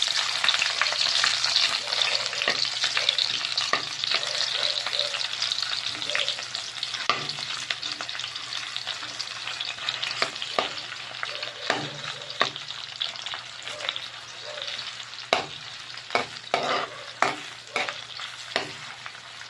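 Sliced onions sizzling in hot oil in a pan, loudest just after they go in and slowly dying down, with a utensil knocking and scraping against the pan as they are stirred, more often near the end.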